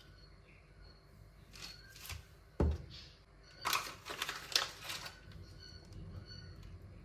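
A single soft thump about two and a half seconds in, then a second or so of light clicking and rustling, like objects being handled and set down. Faint short chirps, like distant birdsong, sound now and then in the background.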